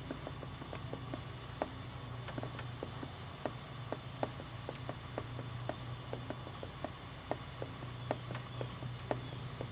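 A horse's hoofbeats: a quick, uneven run of sharp clicks, several a second, over a steady low hum.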